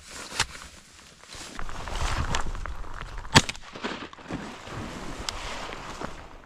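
Rustling and shuffling of someone moving about, over a low wind rumble on the microphone, with a few sharp clicks or knocks; the loudest knock comes about three and a half seconds in.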